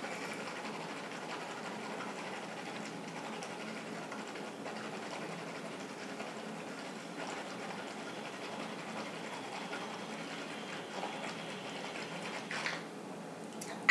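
Water being swished around inside a closed mouth as a rinse: a faint, steady sloshing.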